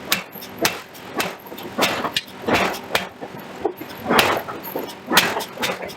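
Forging hammer striking repeatedly, in an uneven series of sharp heavy blows roughly every half second to a second.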